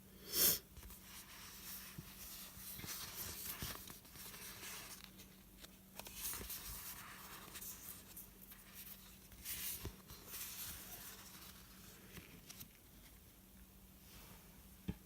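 Paper and vinyl sticker sheets rustling and crinkling as they are handled, with a sharp crackle about half a second in and further bouts of rustling on and off.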